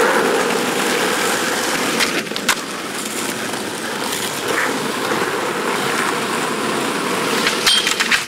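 Skateboard wheels rolling steadily over rough asphalt, with a couple of sharp clicks about two seconds in. Near the end come several louder clacks and scrapes as the board meets a curb.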